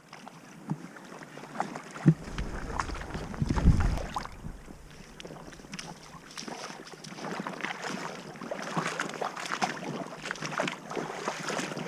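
Water splashing irregularly as a hooked Chinook salmon thrashes in shallow stony water while being landed, the splashes busier and louder in the second half. Wind buffets the microphone briefly about two to four seconds in.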